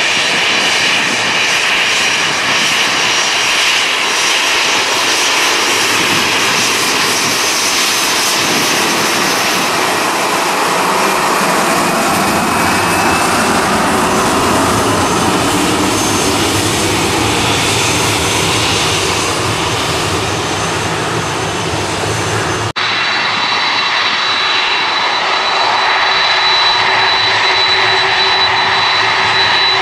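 Jet engines of an Airbus A319 airliner running at low thrust as it taxis, a steady whine over a loud rush of jet noise. About three quarters of the way through, the sound cuts abruptly to the jet engines of a taxiing Boeing 747 freighter, with a steady high whine.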